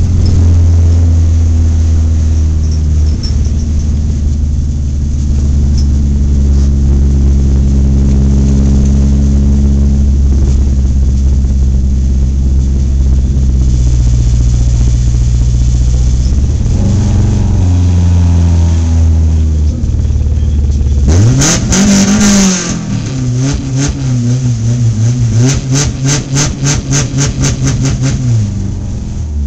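Dirt-track stock car engine heard from inside the car, running hard under throttle with small shifts in pitch. About two-thirds of the way through it revs up sharply, then surges in rapid pulses, about four a second, before the note drops near the end.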